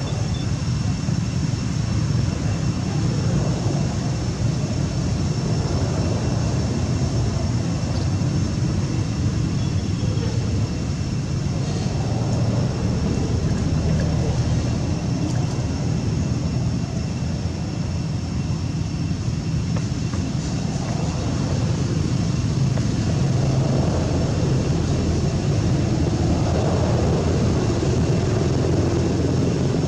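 Steady low rumble with faint, steady high-pitched tones above it, unchanging throughout.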